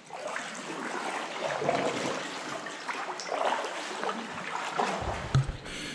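Water splashing and trickling around a sea kayak as it is paddled on calm sea water, uneven and wet rather than steady. A dull knock about five seconds in.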